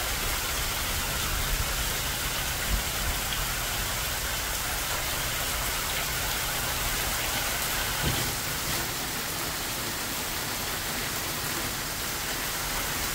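Heavy rain pouring down steadily, an even hiss of drops on grass, leaves and a wooden deck.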